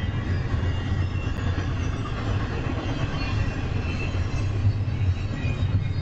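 Double-stack intermodal train of container well cars rolling past at close range: a steady rumble of steel wheels on rail.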